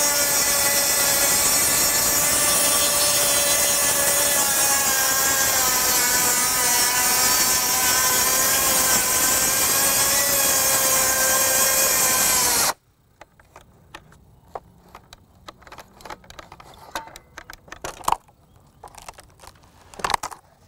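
Makita XGT 40V brushless 7-1/4-inch rear-handle circular saw making a long full-depth rip cut through a board. It runs steadily with a whine that sags slightly under load, then stops suddenly about twelve seconds in. After that come scattered wooden knocks and clatter as the cut strips are handled.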